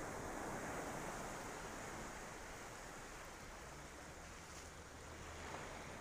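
Small waves washing onto a sandy beach in a steady hiss, swelling over the first couple of seconds and then easing off.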